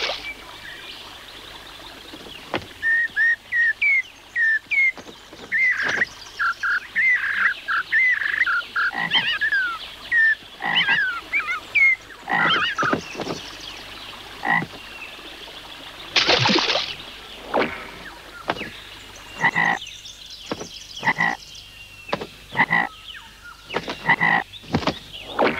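Cartoon sound effects from an animation: quick chirping, whistle-like calls with many sharp clicks and knocks. A brief loud hiss comes about sixteen seconds in.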